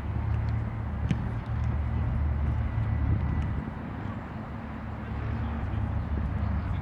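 Outdoor ambience: a steady low rumble, with one sharp knock about a second in.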